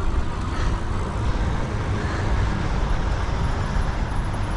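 Steady road traffic noise from passing cars, with a heavy low rumble.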